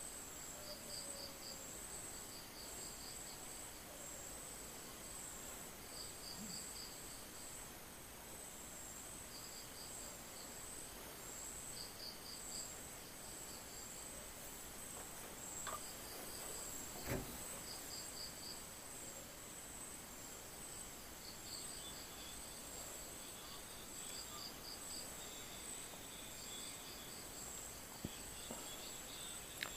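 Faint insects chirping: a steady high trill with short pulsed chirps repeating every couple of seconds. There is one sharp tap a little past halfway.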